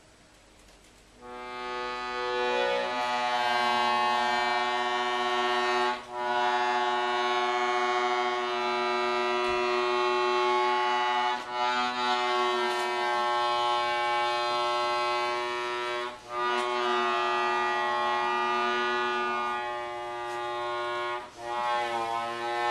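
Piano accordion holding long, dense sustained chords that start about a second in, with brief breaks roughly every five seconds, each marked by a short click.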